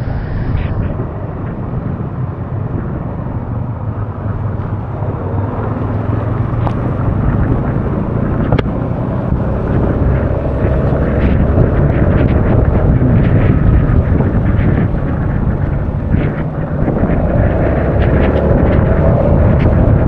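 Wind buffeting the action-camera microphone of a Honda Forza 350 scooter rider at speed, over the scooter's engine and road noise. The rush grows louder about halfway through.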